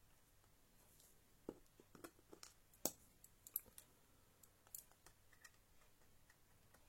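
Scattered small clicks and taps of the Toshiba Satellite M840 laptop's plastic and metal parts being handled during disassembly, most of them in the middle of the stretch with a couple of sharper clicks.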